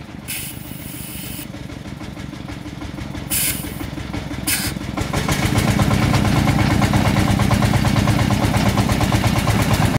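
Truck engine running steadily, getting louder and heavier about five and a half seconds in, with three short hisses during the first five seconds.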